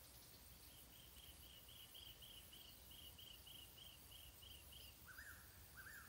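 Faint outdoor wildlife sounds: a high chirp repeated about four times a second for some four seconds, then two short lower calls near the end.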